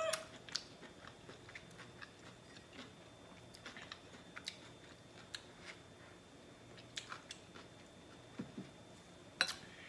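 A person chewing and biting food close to the microphone: soft, scattered mouth clicks and smacks, with a sharper click near the end.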